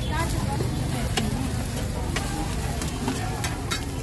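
Noodles and an egg roll sizzling on a large black griddle pan, with a metal spatula scraping and clinking against the pan a handful of times as the noodles are stirred.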